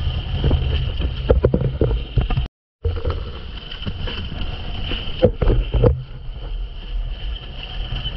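Wind buffeting an action camera's microphone as a windsurf board planes fast over chop, with a steady low rumble and sharp slaps of the board and spray hitting the water, clustered about a second and a half in and again about five seconds in. The sound cuts out for a moment about two and a half seconds in.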